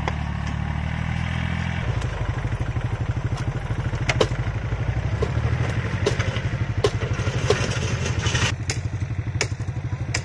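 Yanmar compact tractor's diesel engine running while it drives a rotary tiller; about two seconds in its steady note turns into a fast, even chugging pulse. Sharp clicks and knocks come now and then over the engine.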